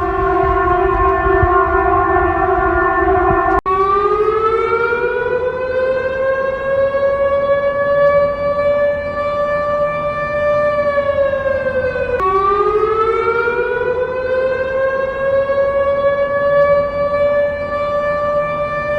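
Civil defence warning sirens. A steady, unchanging tone sounds first and cuts off suddenly a few seconds in. Then a siren winds up in pitch, holds its note, and slides down. About twelve seconds in it breaks off abruptly and winds up again.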